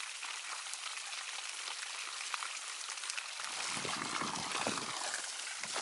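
Cold spring water pouring and splashing steadily at a natural spring shower. A lower rumbling noise joins it a little past halfway.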